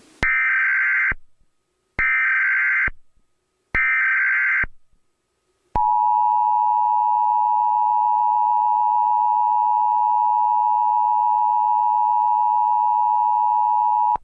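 Emergency Alert System tones: three short bursts of SAME header data about two seconds apart, then the steady two-tone EAS attention signal. The attention signal starts about six seconds in and holds for more than eight seconds, announcing an incoming alert.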